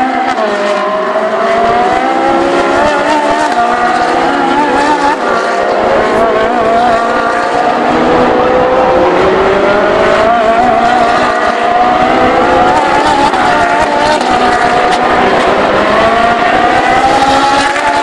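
Ferrari 458 Challenge race cars' 4.5-litre V8 engines running hard as several cars pass one after another, the pitch climbing through the gears and dropping at each shift, with one engine note falling away about a second in.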